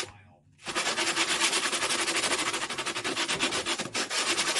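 Electric palm sander running, sanding down a hardened superglue-and-baking-soda filler patch on wood. It starts up about a second in and runs steadily, with a brief drop near the end.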